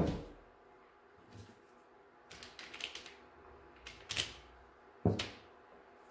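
Hard objects knocked and set down: a sharp knock at the start, a short run of light clatter a couple of seconds in, then two more knocks about a second apart near the end.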